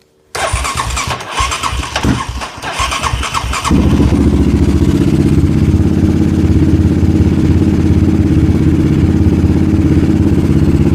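Yamaha Raptor 700 ATV's single-cylinder engine cranking on the starter for about three seconds, then catching about four seconds in and running steadily.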